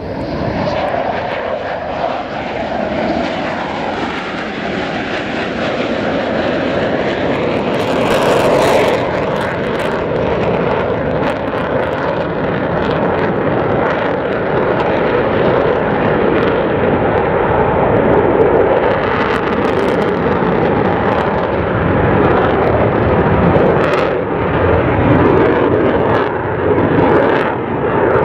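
The twin turbofan engines of two F-15 fighter jets roaring loudly as the jets make a low flyby instead of landing and climb away. The roar builds over the first couple of seconds, then stays loud and steady.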